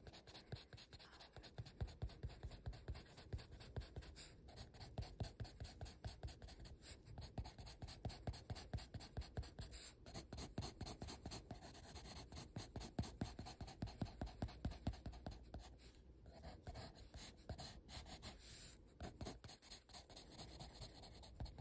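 Orange colored pencil shading on sketchbook paper: quick, repeated back-and-forth strokes of the pencil lead on the page.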